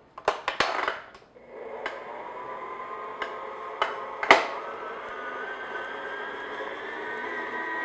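Electric stand mixer with a flat beater creaming butter and sugar in a glass bowl on low speed. A few clicks come as it is started, then the motor runs with a steady whine that slowly rises in pitch, broken by a few sharp knocks, the loudest about four seconds in.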